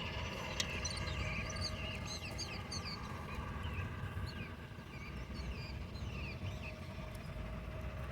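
Small birds chirping: many short, quick calls scattered throughout, over a steady low outdoor rumble, with a single click about half a second in.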